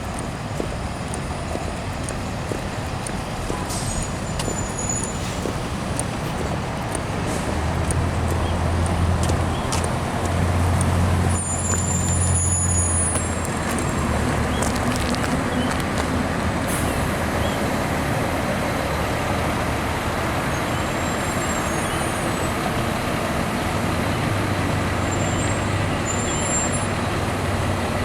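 Road traffic backed up in a jam: vehicle engines running steadily, with a heavy vehicle's low engine drone growing louder about a third of the way in and again near the end, and a few brief high squeaks.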